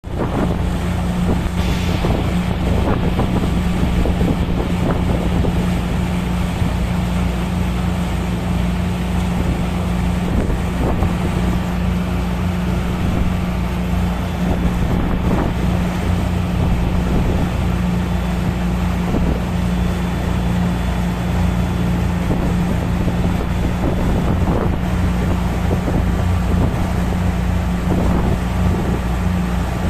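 Steady low drone of a large ship's engines and machinery, with a strong even hum and a rushing noise over it, and wind buffeting the microphone.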